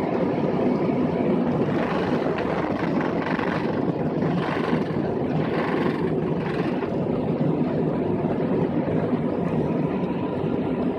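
Airliner cabin noise during the takeoff roll and liftoff: the jet engines at takeoff thrust make a steady, loud rush, with a few swells of higher hiss in the middle.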